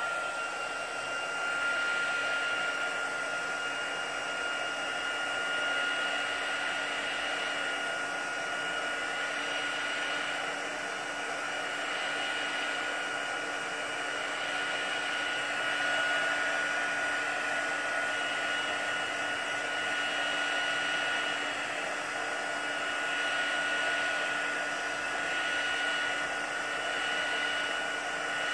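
Handheld dryer running steadily to dry freshly applied stencil chalk on a painted wooden sign: a rush of blown air with a steady high whine, swelling a little as it is moved over the surface.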